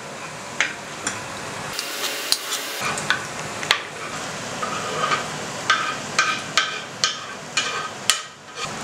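Chopped pork brain being scraped with a knife off a wooden cutting board into a steel pot of onions frying in mangalica pork fat. Repeated sharp clicks and knocks of the knife against the board and pot rim sound over a steady sizzle.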